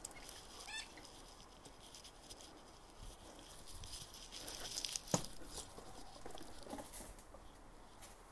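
A dog's claws tapping and pattering on a concrete path. A rubber squeaky ball in its mouth gives one short squeak about a second in, and there is a single sharp knock about five seconds in.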